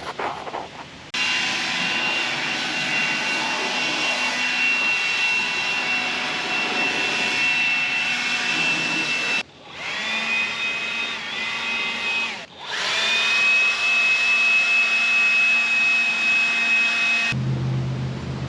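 Portable sawmill running at speed, engine and band blade giving a steady high-pitched whine, in edited segments: it starts abruptly about a second in, breaks off twice, rises in pitch after the first break, and stops abruptly near the end.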